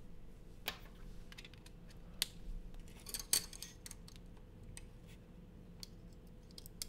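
Sparse light clicks and taps of small hard objects being handled, a few single ones and a short cluster about three seconds in, over a faint steady hum.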